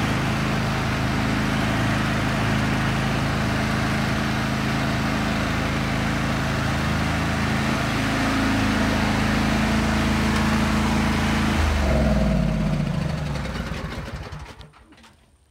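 Riding lawn mower engine running steadily, then shut off about 12 seconds in, its pitch falling as it spins down and dies away.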